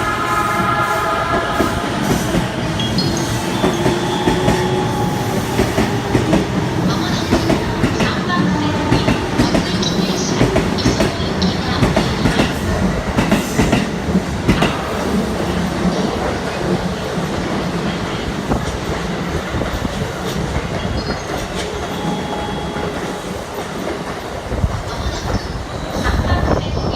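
Electric commuter train running through the station, its wheels clicking over the rail joints, with the motors' whine rising in pitch a few seconds in.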